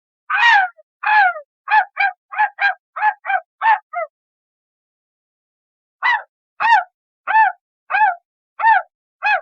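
A high-pitched cartoon voice making a quick run of short, wordless calls, about nine in the first four seconds; after a gap of about two seconds, six more come at a slower, even pace.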